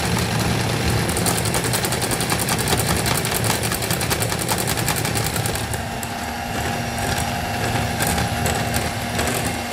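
Electric hand mixer running steadily, its beaters whisking cake batter in a glass bowl while flour is sifted in.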